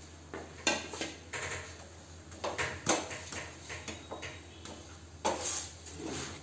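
Metal tongs and utensils clinking and knocking on an iron tawa over a gas stove as a paratha is turned. Several separate sharp clicks and knocks come through, the loudest about three seconds in.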